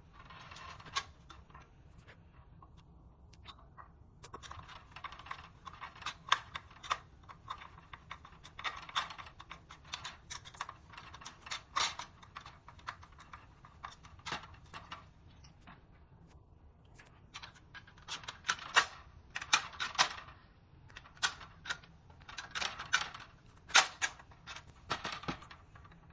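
Irregular bursts of quick, light clicks and taps, the sound of hand tools and small hardware being worked while a fire alarm pull station is fitted.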